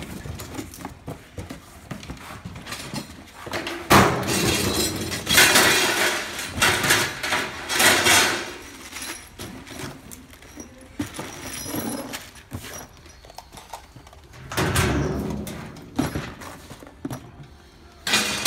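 Handling noise from parts being moved and set down: a sharp knock about four seconds in, then several bouts of scraping and rustling.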